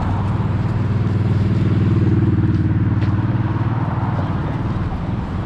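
A road vehicle's engine running close by with a steady low hum. It grows louder to about two seconds in and then eases off, over general street traffic noise.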